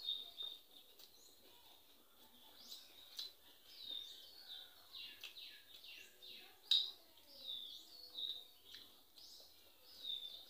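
Small birds chirping over and over in short falling chirps, mixed with the mouth clicks and smacks of someone chewing a handful of rice. The sharpest smack comes a little past halfway.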